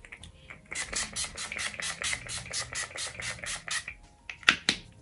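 Makeup setting spray being pumped onto the face in a rapid run of short misting sprays, about five or six a second, then two more single spritzes near the end.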